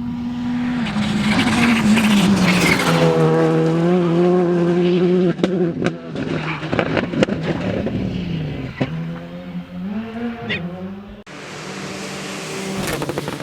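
Rally car engine at high revs, its pitch climbing as the car approaches and then dropping sharply about five seconds in. Sharp pops and bangs follow as the revs swing up and down through gear changes. Near the end the sound cuts abruptly to another car's engine approaching.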